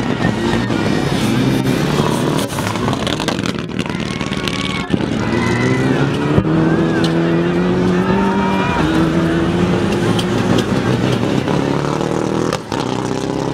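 Rally car engine at high revs as the car slides through a loose dirt corner, its pitch rising and falling with throttle and gear changes.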